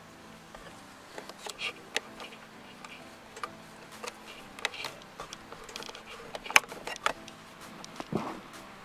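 Plastic headlight housing and its mounting hardware being handled and fitted: irregular light clicks and taps, the sharpest click about six and a half seconds in.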